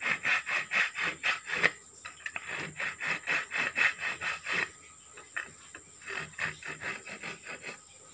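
Small hand saw cutting into a wooden board, quick back-and-forth rasping strokes about three a second. The strokes break off briefly about halfway through, then resume more lightly.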